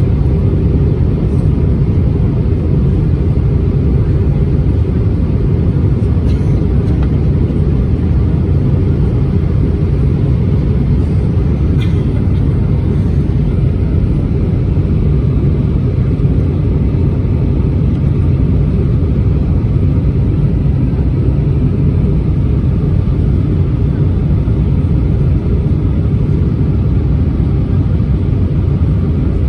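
Steady low rumble inside the passenger cabin of an Airbus A320-231 airliner: engine and air noise that holds unchanged throughout.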